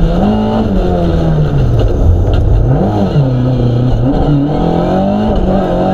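Mk2 Ford Escort rally car's engine heard from inside the cabin, working hard on a stage. The revs fall away over the first two seconds, jump in a quick sharp blip about three seconds in, then build again and hold a higher, steady note near the end.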